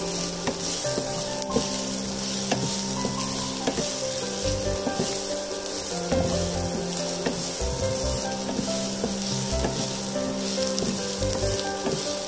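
Chopped onion, ginger, garlic, green chillies and curry leaves sizzling in hot oil in a nonstick frying pan while being sautéed, with a spatula stirring and scraping against the pan in scattered clicks.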